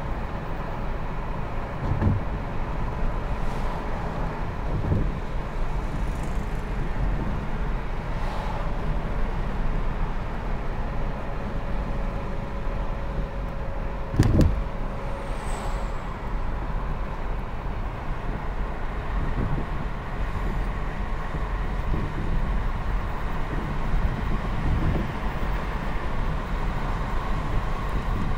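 Car driving, heard from inside the cabin: a steady low rumble of engine and tyre noise, with a few thumps, the loudest about halfway through.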